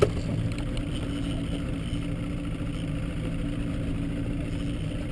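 Small boat's outboard motor running at a steady low speed, giving an even hum. There is a single sharp knock right at the start.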